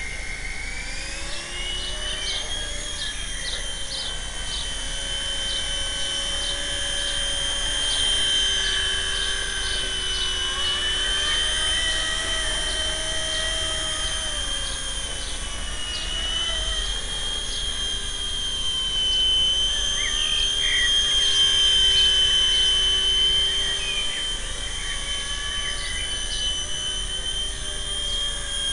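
Carson EC145 DRF fixed-pitch micro RC helicopter's motor and rotors whining. The whine rises as the helicopter spools up about a second in, then wavers up and down in pitch with the throttle as it flies.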